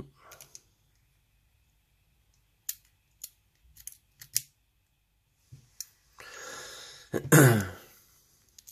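Light, scattered clicks of small metal lock parts being handled. Near the end comes a louder throat-clearing cough.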